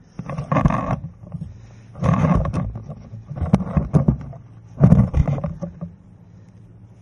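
Handling noise from hands gripping and shifting a bicycle helmet with a camera mounted on it: rubbing and clicking knocks in four bursts of about a second each, then quieter.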